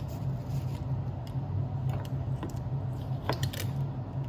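Small plastic toy pieces being handled and clicked together, a scatter of light clicks and taps, over a steady low hum.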